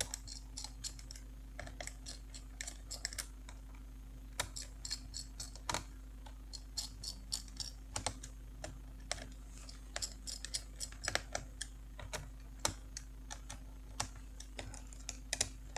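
Small screwdriver turning screws down into a laptop's heatsink mounts: many quick, irregular light clicks of metal on metal as the tip seats and turns in the screw heads.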